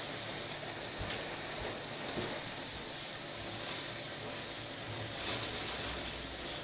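Pork sizzling faintly and steadily in a frying pan, with a plastic bag crinkling briefly twice.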